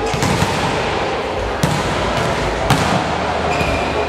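Volleyballs being hit and smacking onto the hard court during a warm-up in a large sports hall, with three sharp smacks over a steady background of hall noise.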